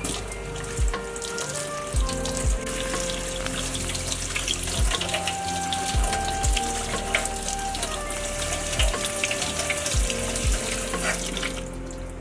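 Water running from a kitchen tap onto barberries in a plastic colander as they are rinsed, a steady splashing hiss that stops near the end.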